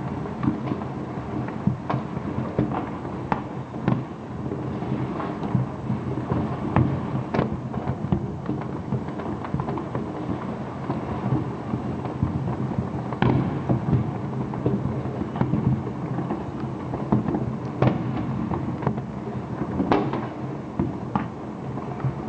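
Fireworks going off in a rapid barrage: a dense, constant rumble and crackle, with sharp bangs standing out every second or two.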